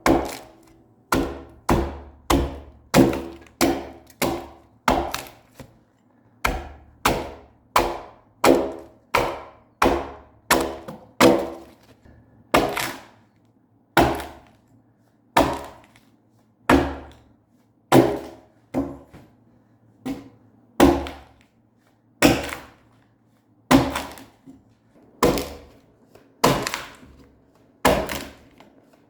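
Axe blows chopping into a freshly cut spruce log while hewing it into house timber: sharp woody thunks, about two a second for the first twelve seconds, then slower and heavier-spaced at about one every second and a half.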